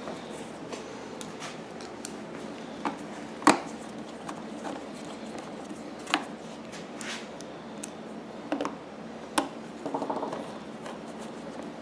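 Scattered light clicks, taps and a brief scrape of hands working the plastic panels and parts of a Honda EU1000i generator, with the sharpest knock about three and a half seconds in.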